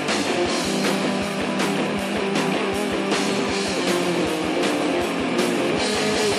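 Instrumental passage of a stoner rock song: guitars over bass and a steady drum beat, with no singing.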